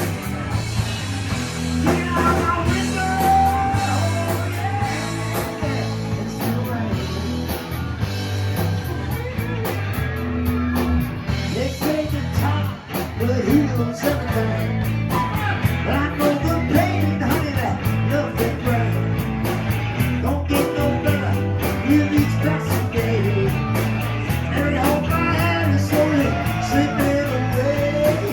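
A rock song played live: singing over guitar, a stepping bass line and a steady drum beat.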